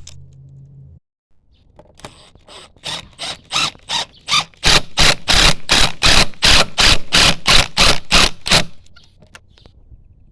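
Power driver driving screws into a railing bracket, a rapid run of loud hammering strokes about three to four a second that starts about two seconds in and stops near the end.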